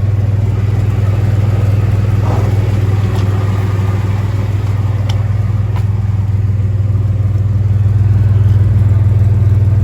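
GMC Sonoma pickup's exhaust, with a test pipe in place of the catalytic converter and a generic muffler, running at a steady idle with a strong low note. It grows slightly louder near the end.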